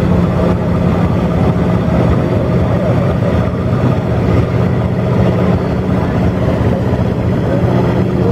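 Vintage tractor's diesel engine running steadily at low revs, a constant low drone with no revving.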